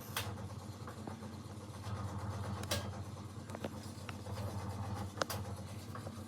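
Washing machine running: a steady low motor hum that swells and eases as the drum turns, with sharp clicks every second or two.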